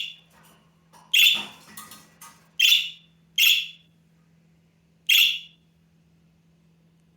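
Half-grown budgerigar chick giving its contact call: four short, harsh, loud squawks spaced one to two seconds apart, then falling quiet for the last second or so. A faint steady hum runs underneath.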